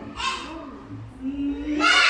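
Young children's voices in a classroom: a short call, then one voice holding a steady note, with louder voices breaking in near the end.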